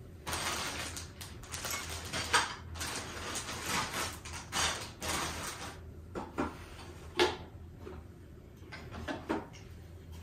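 Clear plastic parts bags rustling and crinkling as small plastic sock-machine parts are handled, then a few sharp knocks of the plastic sock machine body and cylinder being moved and set down. The loudest knock comes about two-thirds of the way in.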